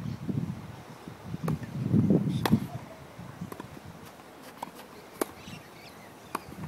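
A tennis ball struck by rackets and bouncing on the court during a rally: sharp pops roughly a second apart, the loudest about two and a half seconds in. A low rumble of wind on the microphone, strongest around two seconds in, runs underneath.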